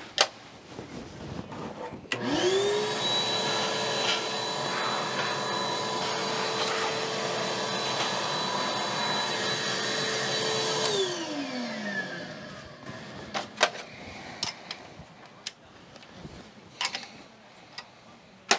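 A small high-speed electric motor spins up with a rising whine, runs steadily with a hiss for about nine seconds, then winds down with a falling pitch. A few sharp metal clinks come before and after it.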